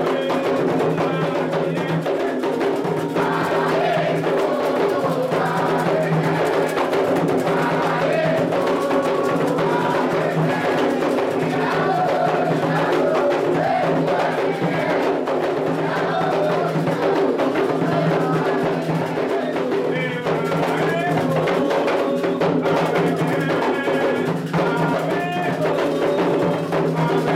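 Candomblé atabaque drums playing continuously while voices sing a ritual chant for Oxum.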